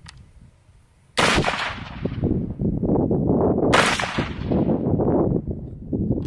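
Mark 12 AR-style rifle firing 75 grain 224 Valkyrie: two sharp reports about two and a half seconds apart, each trailing off in a long rumble.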